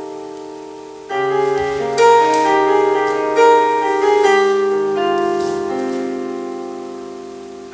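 Slow solo piano music. A chord is struck about a second in, and more notes follow a second or two later. Each is left to ring and fade away.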